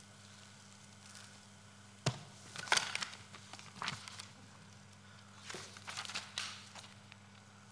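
Sheets of paper being handled and rustled in several short bursts, over a steady low hum.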